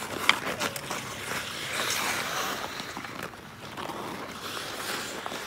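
Bandy players' skate blades scraping across ice, with sharp clacks of sticks hitting the ball and ice, the loudest about a third of a second in. The scraping hiss grows louder around the middle.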